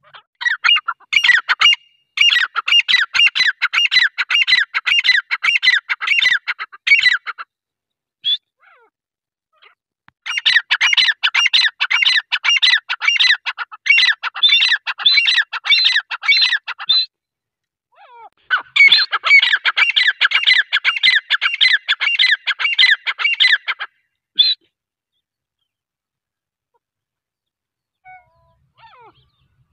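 Grey francolin calling: three long bouts of rapid, high-pitched repeated notes, each lasting about five to seven seconds, with short pauses between them.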